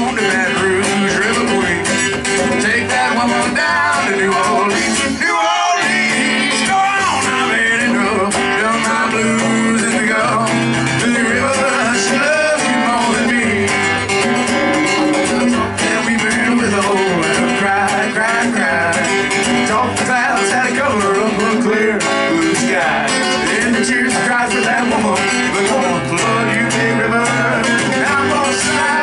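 Live acoustic guitar and conga drums playing a song.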